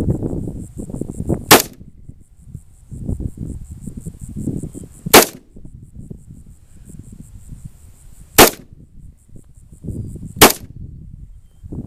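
AR-15-style semi-automatic rifle firing four single shots, a few seconds apart, each a sharp crack with a short tail.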